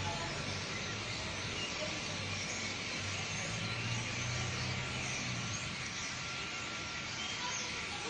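A large number of small birds calling at once in the trees, making a dense, continuous chatter of chirps, over a low steady hum that fades about two-thirds of the way through.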